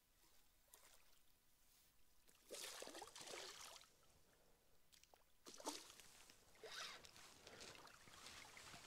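A hooked roach splashing at the water's surface as it is reeled in to the bank: a few short splashes, the longest about two and a half seconds in, then smaller ones, against near silence.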